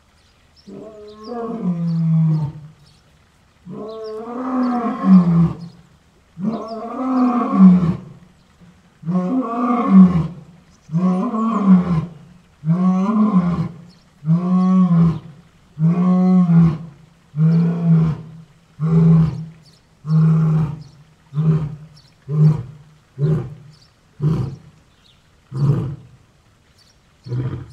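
Lion roaring in a full bout. The first few calls are long and drawn out, then they turn into shorter grunts that come about once a second, more briefly toward the end.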